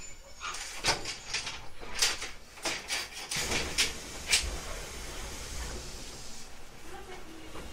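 811-series electric train's passenger doors working: a run of sharp clunks and knocks with a high hiss of air, which stops about six and a half seconds in.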